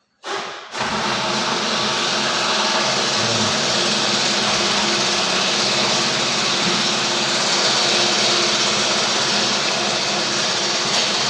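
1991 Toyota Hilux diesel engine turning over on its starter for about ten seconds without firing. The starter is labouring and the engine struggles to turn, as if the battery were flat, though the battery is good: low cranking, no start.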